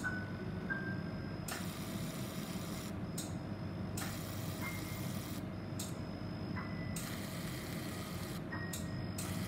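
Fractional CO2 laser unit running during treatment: spells of hiss about a second and a half long, repeating every few seconds, alternate with steady high beep tones as the handpiece fires over the skin. A low hum runs under it.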